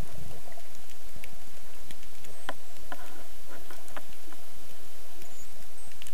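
Underwater ambience picked up by a camera in its housing: a steady low rumble and hiss with scattered, irregular faint clicks and crackles.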